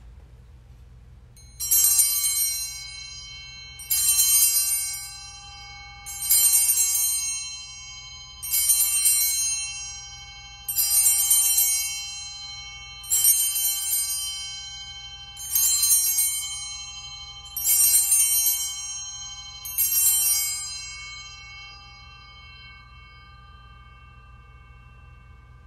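Altar bell struck nine times at an even pace, about every two seconds, each strike ringing on and fading, the lower tones lingering after the last one. It is rung while the priest blesses the people with the Blessed Sacrament in the monstrance at Benediction.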